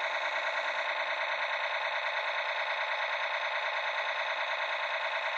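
Electronic machine-gun sound effect from a toy RC battle tank's built-in speaker, a rapid, even, unbroken rattle that plays while the turret is rotating.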